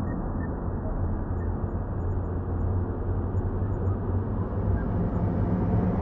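NASA's data sonification of the Pillars of Creation, in which the image is scanned left to right and its visible and X-ray light is turned into sound. It plays as a dense, rumbly wash over a steady low hum.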